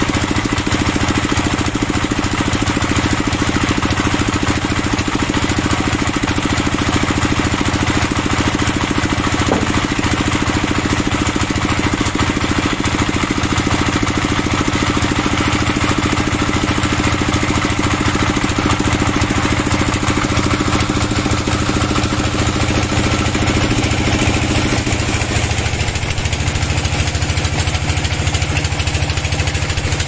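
An engine running steadily at idle, settling to a slightly lower speed about 25 seconds in.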